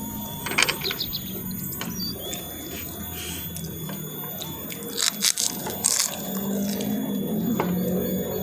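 Crisp crunching of fried krupuk crackers being bitten and chewed: a few short crunches about half a second in and a cluster past the middle, over a steady low hum.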